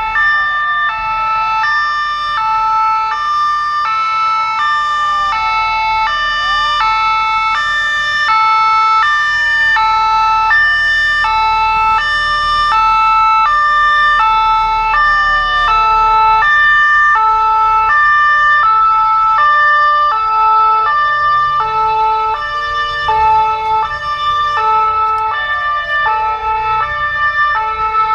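Fire engine sirens running together: a two-tone horn switching back and forth between two pitches, and a second siren whose wail falls slowly in pitch and sweeps back up about every five seconds.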